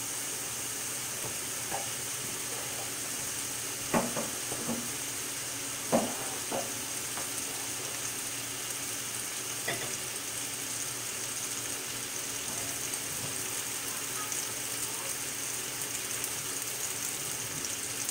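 Tomato sauce with bell peppers and onions sizzling steadily in a cast-iron skillet, with two short louder sounds about four and six seconds in.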